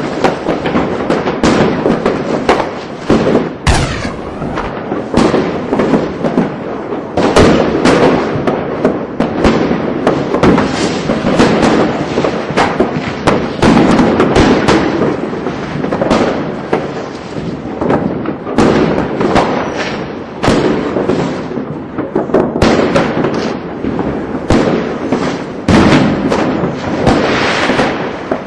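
Fireworks going off in a dense, continuous barrage of overlapping bangs and crackles, with no let-up.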